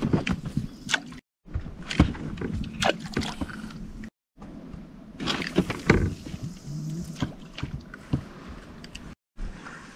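Small boat on the water: sharp knocks and clunks against the hull with water sloshing, broken by three abrupt cuts to silence.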